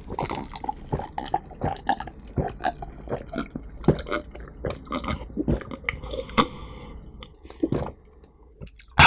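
Close-miked chewing of pizza: a quick string of wet mouth clicks and smacks, thinning out about a second before the end.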